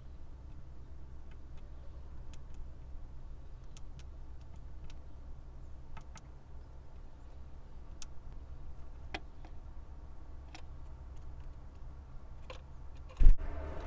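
A steady low rumble with faint, sharp clicks scattered a second or two apart, and one louder knock near the end.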